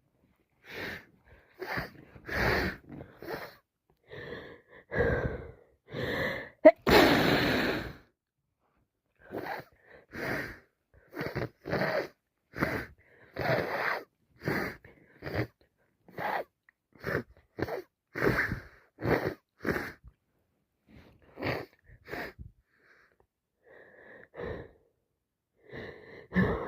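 A person with a head cold breathing in short gasps and sniffs, with one loud sneeze about seven seconds in, then a long run of quick sniffs and breaths.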